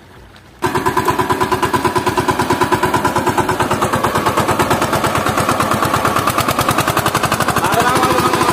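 Power tiller's single-cylinder diesel engine running with a fast, steady chugging beat, starting abruptly about half a second in.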